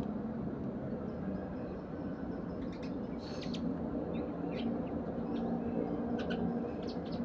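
Eurasian tree sparrows giving short, scattered chirps over a steady low hum.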